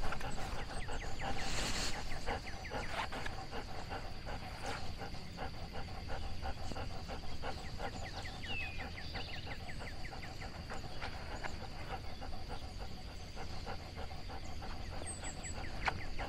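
A dog panting steadily close to the microphone, a quick run of short breaths repeating several times a second.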